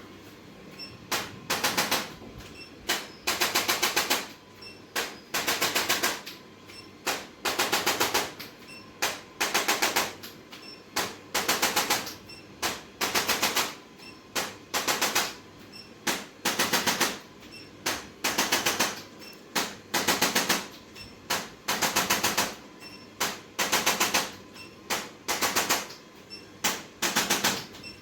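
Rapid mechanical tapping in repeated bursts, a short burst then a longer one, about every two seconds.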